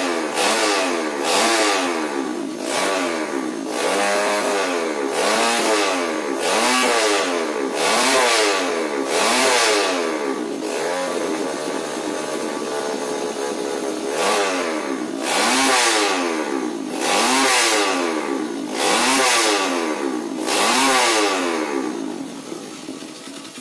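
Bored-up 250cc Honda Tiger single-cylinder four-stroke engine in a KLX Gordon trail bike, revved again and again in quick blips, its pitch climbing and dropping every second or two, with a steadier spell in the middle. It dies down near the end.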